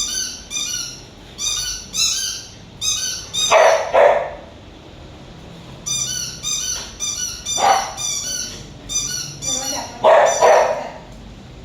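A pet toy giving out a string of short, high, warbling chirps, again and again. A Samoyed barks back at it in short bursts, twice in quick succession about three and a half seconds in, once near eight seconds, and twice more around ten seconds.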